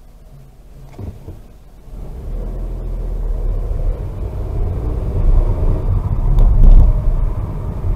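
A car driving, heard as a low engine and road rumble that comes in about two seconds in and grows louder.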